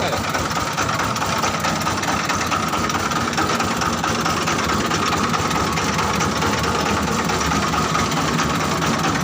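Diesel engine of a mobile rice huller running steadily, with a constant whine from the machinery above the engine noise.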